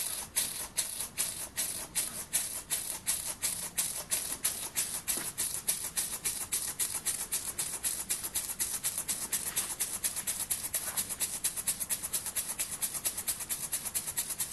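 Model steam engine's exhaust chuffing, a short hiss of steam with each stroke, picking up speed from about two a second to about five a second as it drives a small belt-driven dynamo.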